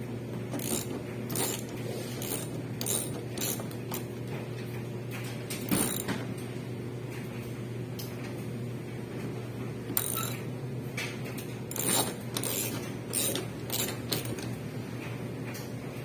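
Irregular mechanical clicks, knocks and creaks from parts of a front-loading washing machine being handled, over a steady low hum.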